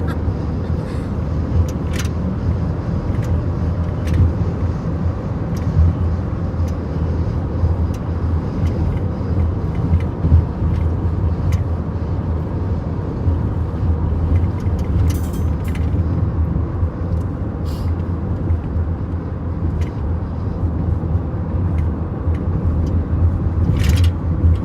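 Car driving at road speed: a steady low rumble of tyre and engine noise, with a few brief clicks here and there.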